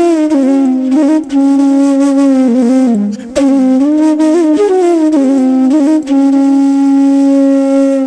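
Background music: a solo flute playing a slow melody of long held notes, with short breaks between phrases about a second in, around three seconds in and at six seconds.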